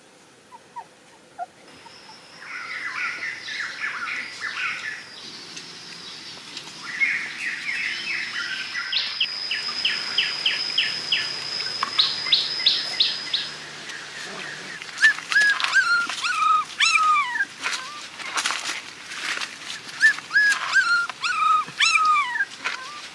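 Puppies whimpering: a string of high whines, each falling in pitch, coming thick in the second half. High quick chirping with a steady high note runs under the first half.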